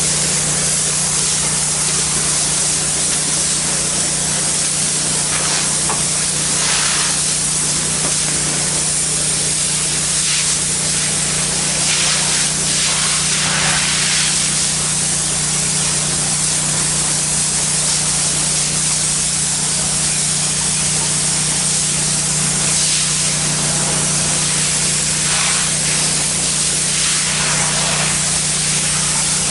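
Pressure washer spraying water through a low-pressure black tip onto ceramic tile: a steady hiss of spray, with a constant low hum underneath.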